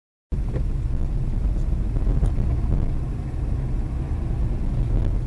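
Steady deep rumble of a car driving, its engine and tyres heard from inside the cabin by a dashboard camera. It starts abruptly after a moment of dead silence.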